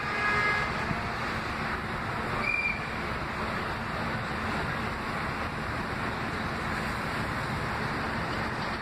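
Steady rumble and wind noise in the open air as a subway train approaches from a distance, with a few brief high-pitched tones just after the start and a single short one about two and a half seconds in.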